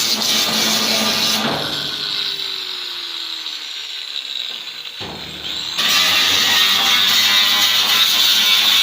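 A power tool working metal, running down with a slowly falling whine about a second and a half in, then running at full loudness again from around six seconds.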